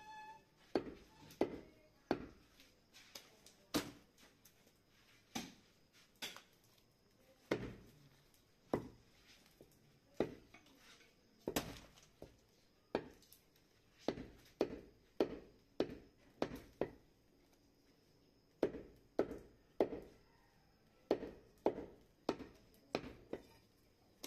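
Heavy butcher's cleaver chopping goat meat on a wooden log chopping block: a run of sharp chops, about one or two a second, with a short pause about two-thirds of the way through.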